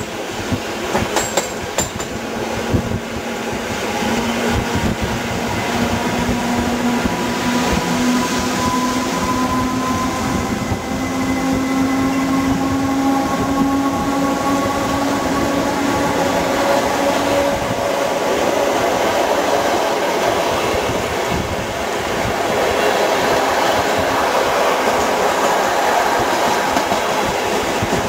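Two Polish electric trains running side by side, heard close up from an open train window: steady wheel-on-rail rumble and rushing noise with clickety-clack over the rail joints. A whine of electric traction motors slowly rises in pitch through the first half as the trains gather speed.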